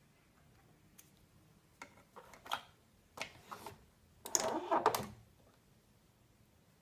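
A Nespresso capsule machine being loaded by hand: light plastic clicks as a capsule is picked up and handled, then a louder run of clacks about four to five seconds in as the lever is lifted, the capsule drops into the chamber and the lever is clamped shut.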